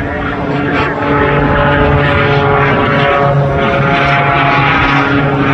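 Propeller engine of a Pitts Special aerobatic biplane running steadily overhead, with an even engine note.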